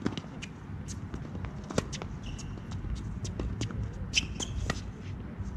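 Tennis rally on a hard court: sharp pops of the ball coming off the rackets and bouncing, the loudest near the start and about two seconds in. Sneakers squeak briefly twice as a player changes direction.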